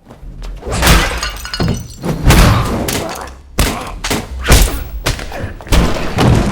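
Fight sound effects: a rapid, irregular run of about eight heavy punch and body-impact hits, some with a crash of something breaking.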